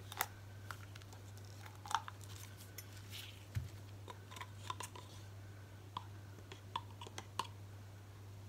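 Faint, scattered clicks and light clinks of a metal tablespoon scooping gloss Mod Podge out of its plastic jar, over a steady low hum.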